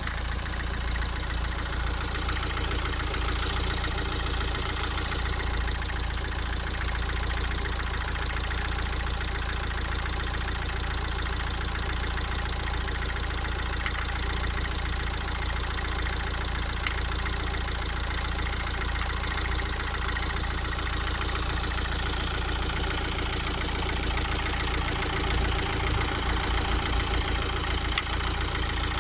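Opel Zafira B 1.7 CDTI four-cylinder turbodiesel idling, with a light repeated tapping knock running through the idle. It is an unexplained extraneous noise in the engine, of unknown cause.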